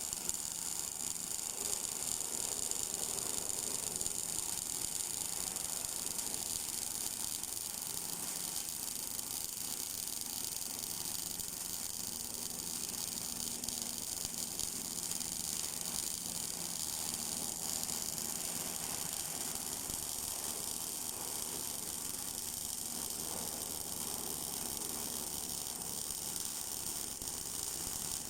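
Automatic MIG welding machine at work: a steady, unbroken high hiss and buzz of the welding arc.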